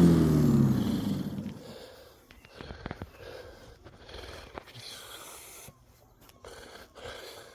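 Black & Decker 1800 W electric rotary lawnmower motor winding down after being switched off, its hum falling in pitch and fading over about two seconds. Then a man breathing heavily.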